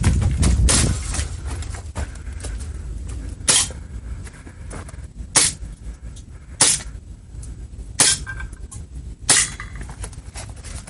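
Airsoft gun fired in single shots at tin can targets: six sharp cracks about one and a half seconds apart, over a steady low rumble.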